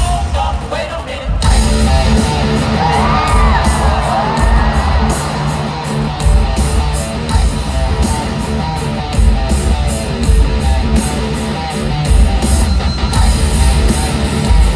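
Live rock band playing an instrumental break in an arena: electric guitar, bass and drums on a steady beat, coming in at full strength after about a second and a half, with yells from the crowd.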